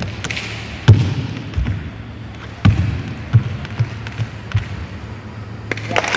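Irregular dull thuds on a sports-hall court floor over a steady low hum, seven or so spaced a fraction of a second apart; hand clapping starts near the end.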